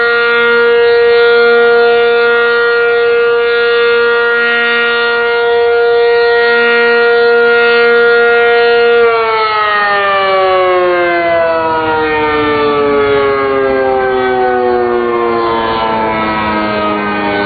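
Cyclone alert siren sounding a loud, steady tone, then winding down about halfway through, its pitch falling slowly and continuously.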